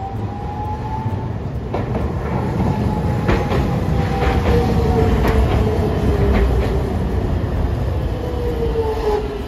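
A Hiroshima Electric Railway 3800-series articulated tram passes close by. The rumble of its wheels on the rails builds to a peak about halfway through and then fades. A run of sharp clicks comes from the wheels crossing the track, under a faint whine that slowly falls in pitch.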